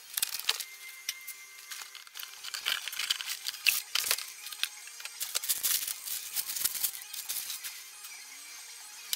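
Rapid, irregular clicking and rattling, with faint music under it.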